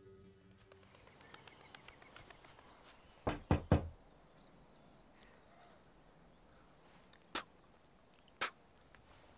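Knocking on a door: three quick knocks about three seconds in, then two single sharper knocks about a second apart near the end, over a faint quiet background.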